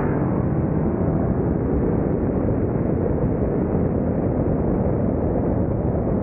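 Steady loud roar of a car running at speed under hard acceleration, heard from the moving car: engine, exhaust and wind noise run together with no clear pitch.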